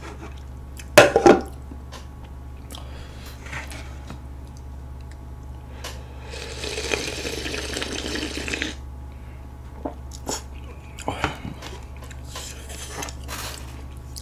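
Broth slurped straight from an earthenware ttukbaegi bowl of budae-jjigae for about two and a half seconds, midway through. A loud clatter of tableware comes about a second in, and a few lighter knocks of the bowl and spoon come shortly after the slurp.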